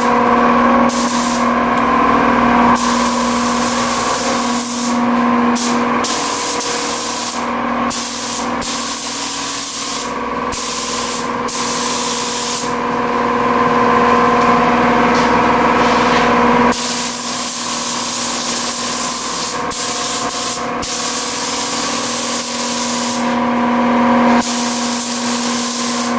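Gravity-feed paint spray gun hissing as it sprays, in long stretches broken by short pauses between passes, over a steady mechanical hum.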